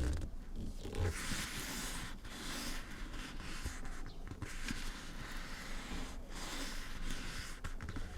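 Scratching and rubbing on the surface of a Lexus LX450d: about four long, hissing strokes of a second or two each, with short breaks between them.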